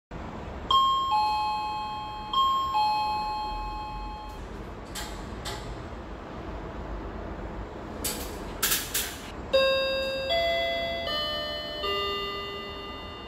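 Hager wired doorbell chime sounding a two-note ding-dong, high note then lower, twice. After a few short clicks, a longer chime tune of several stepped notes begins about nine and a half seconds in.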